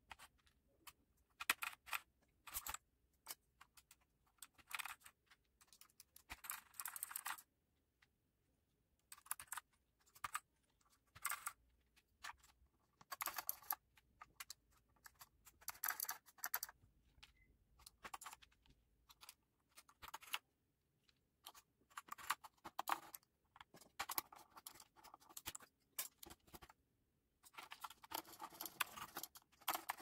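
Mechanical keyboard fitted with PBT pudding keycaps being typed on: short key clicks in irregular bursts, some quick runs of many keystrokes, with brief pauses between.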